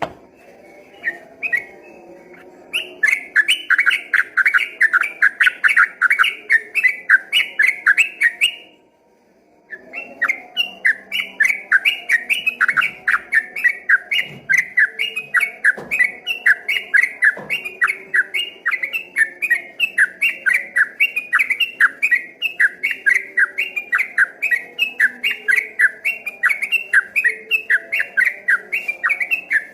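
Yellow-vented bulbul (trucukan) singing a long, rapid run of repeated whistled notes, about three a second. The song breaks off for about a second a third of the way in, then carries on.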